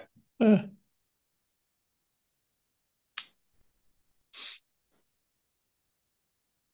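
A brief murmured word over a video call, then near silence from the gated call audio, broken by a faint click about three seconds in and a short breathy exhale a second or so later.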